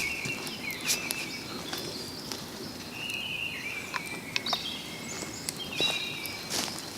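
Birds singing in woodland: short warbling phrases repeated every couple of seconds, with scattered sharp clicks and crackles.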